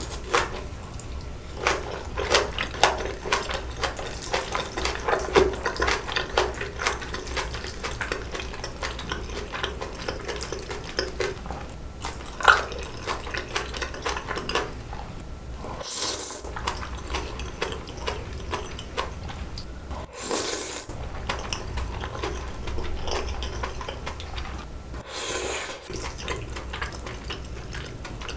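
Close-miked eating of spicy bibim noodles: wet chewing with many small clicks in the first half, then three long slurps of noodles in the second half, with chopsticks now and then clicking against the bowl.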